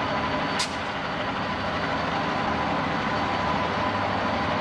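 Non-turbocharged EMD two-stroke diesels of Southern Pacific SD7 locomotives working under load as they drag a heavy cut of freight cars: a steady engine drone, slowly growing louder. A short hiss sounds about half a second in.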